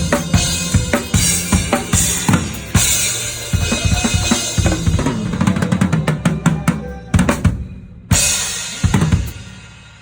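Drum kit played with the band, kick and snare over steady bass notes, running into a quick fill about six to seven seconds in. Two final crash accents follow, and the last one rings out and fades as the song ends.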